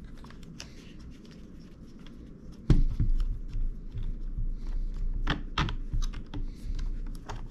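Orange plastic parts of a drone-controller tablet mount being handled and taken apart: a sharp click a little under three seconds in, then a run of small clicks and taps.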